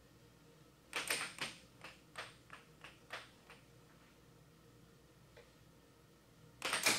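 Air hockey puck and mallets clacking on the table: a quick cluster of sharp clicks about a second in and a few single taps over the next two seconds, then near the end a fast run of clacks as a left-wall bank shot is fired and scored.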